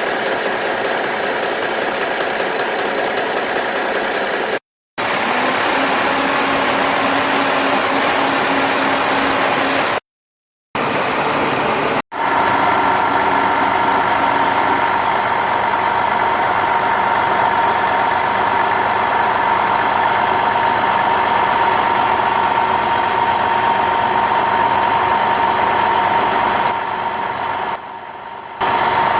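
Vehicle engine running steadily, broken by three short silent gaps where the sound shifts between takes, with a steady hum standing out in the second half.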